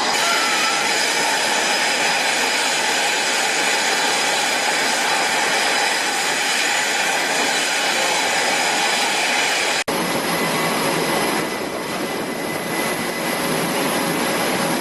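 Jet aircraft engines running with a loud, steady roar. The sound drops out for an instant about ten seconds in, then carries on slightly quieter.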